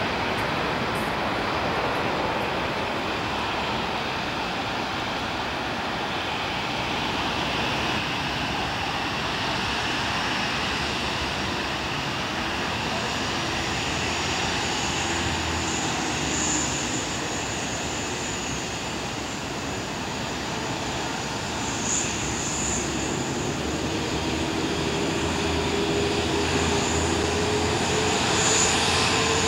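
Lufthansa Airbus A380's four Rolls-Royce Trent 900 turbofans running at low power as the jet rolls slowly on the runway. It is a steady jet rush with a faint high whine, and a lower whine that rises in pitch over the last several seconds as the engines spool up.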